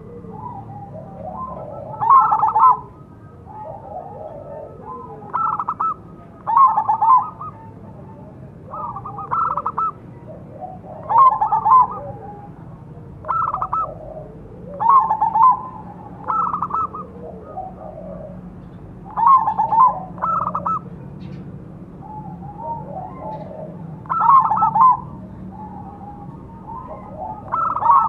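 Zebra doves (perkutut) cooing: a crossbred Bangkok perkutut repeats loud, rhythmic coo phrases every second or two, and softer, lower coos of answering local perkutut fill the gaps.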